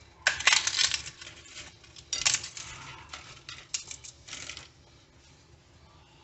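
Warmed hard corn taco shells cracked and crunched by hand over a ceramic plate, with broken pieces dropping onto it. The crackling comes in three crisp spells within the first five seconds.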